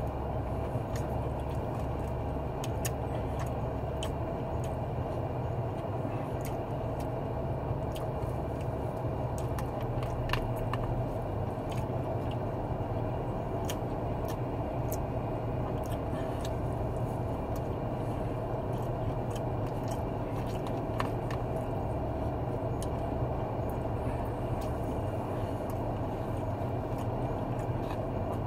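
Steady hum of a parked car idling, heard from inside the cabin. Small clicks of a plastic spoon against a paper tray and chewing run over it as corn is eaten.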